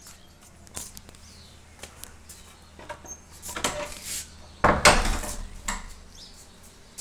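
Household clatter: scattered light clicks and knocks, then a louder scraping, rattling stretch from about three and a half to six seconds in, loudest about five seconds in.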